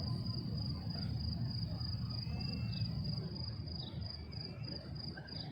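A cricket chirping in a fast, steady pulse of high notes over a low rumble of background noise.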